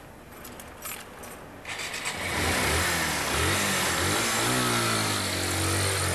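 Small motorcycle engine starting up about two seconds in, then revving and pulling away, its pitch rising in steps as it accelerates.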